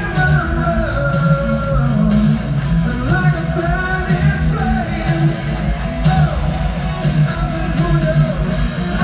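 Live rock band playing in an arena: distorted electric guitars, bass and drums with a male lead vocal singing over them, heard from high up in the arena stands.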